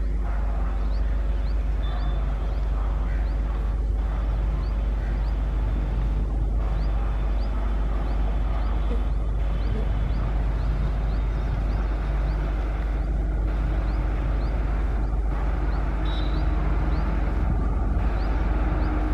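WAP-4 electric locomotive and its coaches approaching slowly, a steady rumble of wheels on the rails and the hum of the locomotive's motors, as the train comes in to halt.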